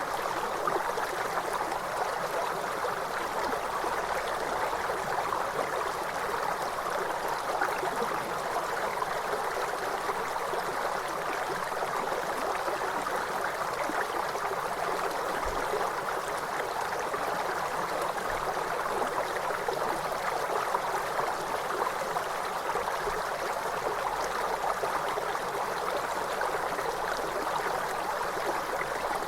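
River water flowing, a steady, even rush with no break or change.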